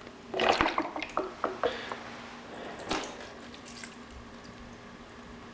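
Rubbing alcohol and oil splashing and dripping as a power supply is worked in the liquid. There is a cluster of wet clicks and splashes in the first couple of seconds and another about three seconds in.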